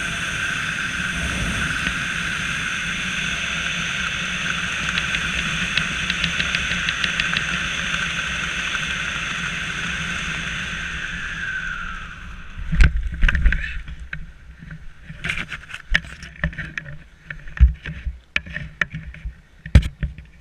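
A small motor running with a steady high-pitched whine, which winds down and stops about twelve seconds in. Several loud knocks and handling thumps follow.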